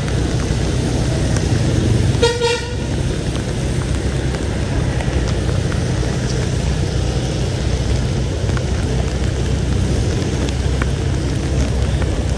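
A vehicle horn gives one short toot about two seconds in, over a steady low rumble of street traffic.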